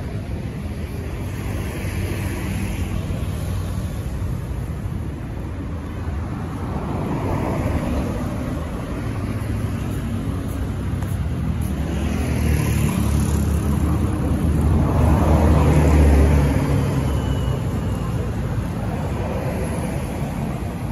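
City street traffic: a continuous rumble of vehicle engines and tyres, swelling as vehicles pass close by, loudest about fifteen seconds in before easing.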